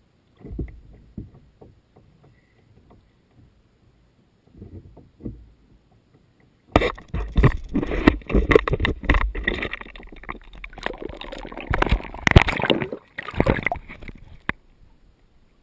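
Water splashing: a few soft knocks, then about seven seconds of loud, irregular splashing that stops shortly before the end.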